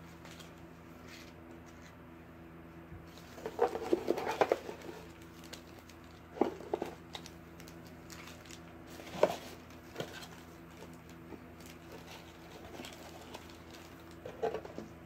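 Tissue paper rustling and crinkling as it is handled, in short bursts: about three and a half to five seconds in, near six and a half, near nine, and again near the end. A steady low hum runs underneath.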